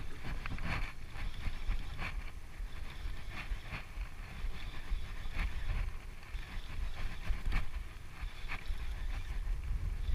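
Wind rumbling on the microphone, with water lapping and slapping against a plastic kayak hull in irregular short knocks.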